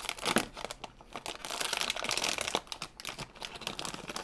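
A metallic foil blind bag crinkling and crackling as hands squeeze and pull it open, in dense, irregular crackles.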